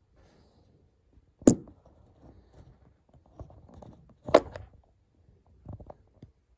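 Handling noise from a phone being moved and set up: two sharp knocks about three seconds apart, with rustling between and a few lighter taps near the end.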